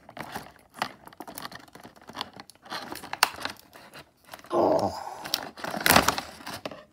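Clear plastic toy packaging crinkling and crackling as it is cut with scissors and handled, with irregular sharp crackles and a louder stretch of crumpling near the end.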